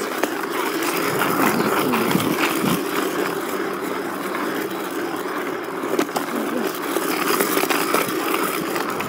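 RipStik caster board wheels rolling on an asphalt road: a steady grinding rumble, with a couple of sharp clicks about six and eight seconds in.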